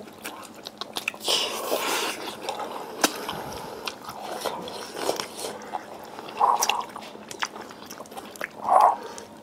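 A person chewing and biting red-braised pig trotter close to the microphone: irregular wet smacking and small sharp clicks, with two short louder mouth sounds near the end.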